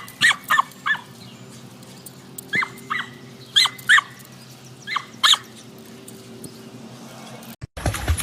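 A dog barking in about ten short, high-pitched yaps, mostly in quick pairs with pauses between.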